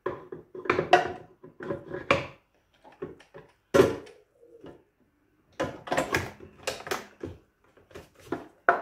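Hard plastic Ninja blender parts knocking and clattering as they are handled: the stacked blade assembly sits in the plastic pitcher while a lid is moved about. A series of separate sharp knocks, the loudest about four seconds in, then a quick run of clatters after a short pause.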